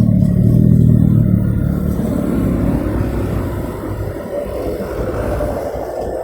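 Road traffic at a crossroads: a vehicle's engine passes close and is loudest in the first couple of seconds, then fades into the steady hum of other traffic.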